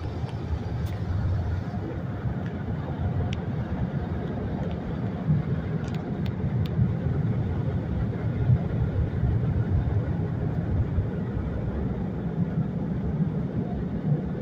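Steady low rumble with a light hiss, heard from inside a car's cabin, with a few faint clicks early on.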